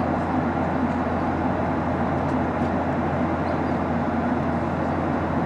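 Steady cabin noise of a Boeing 737-800 in flight, heard from a seat near the front: rushing airflow over the fuselage with the steady low hum of its CFM56-7B engines.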